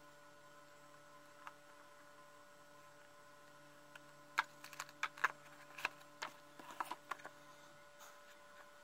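Silver jewellery being handled and set into a small cardboard jewellery box: a quick cluster of light clicks and taps starting about halfway through, over a faint steady hum.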